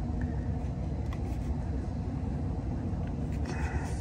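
Steady low rumble with a faint steady hum from running rooftop air-conditioning equipment, with a faint click about a second in.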